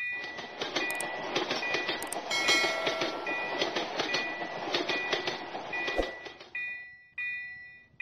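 Railroad crossing warning bell ringing in a steady repeating rhythm while a train clatters and rumbles across the crossing. The train noise fades out about six and a half seconds in, leaving the bell ringing alone.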